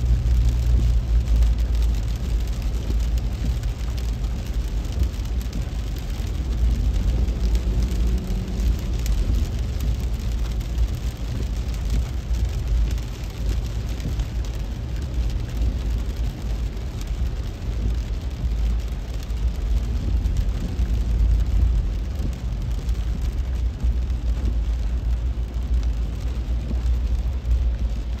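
Heavy rain hitting a car's windshield and roof, heard from inside the cabin over the steady low rumble of the car driving on a wet road.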